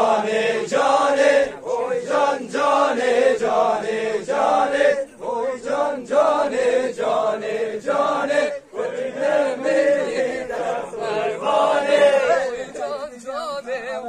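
Male voices chanting a Kurdish govend dance song in a steady, syllable-by-syllable beat. Near the end a single voice takes up a wavering, ornamented melodic line.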